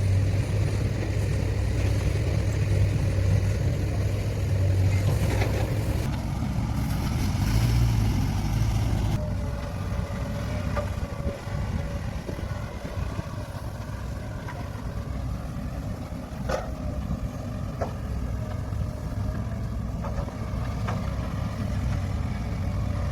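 Heavy diesel earthmoving machinery working, its engine loud and heavy for about the first nine seconds, then easing to a lower level with a steady whine and a few sharp knocks.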